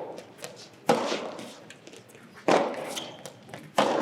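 Soft tennis rally: the rubber ball is struck by rackets three times, about one and a half seconds apart, each sharp hit ringing on in a large indoor hall.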